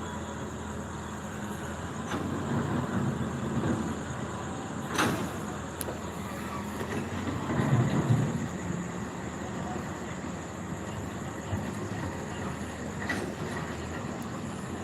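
Steady rumble of heavy vehicles or machinery, swelling louder twice, with a sharp knock about five seconds in.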